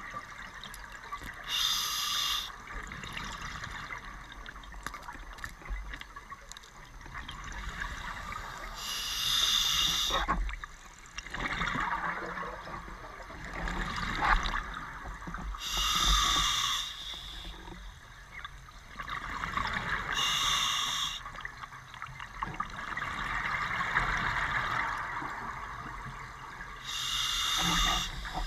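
Scuba diver breathing through an open-circuit regulator underwater: about five loud breaths of hissing and bubbling, one every five to seven seconds, with a steady bubbly rush between them.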